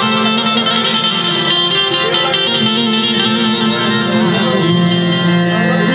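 Instrumental music from a Gujarati devotional bhajan: melody instruments playing over steady held notes, the melody moving from note to note at an even, continuous loudness.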